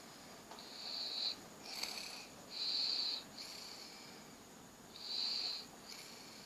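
A sleeping person snoring with a high-pitched whistling wheeze: a short whistle on each breath in and each breath out, a pair about every two seconds.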